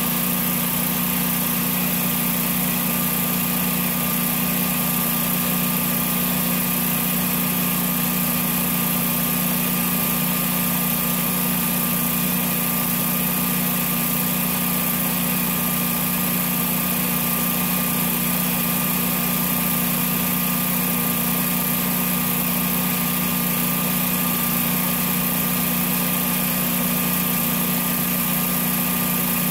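Generac home standby generator engine running steadily at its governed speed of about 3600 rpm, with an even, unchanging hum.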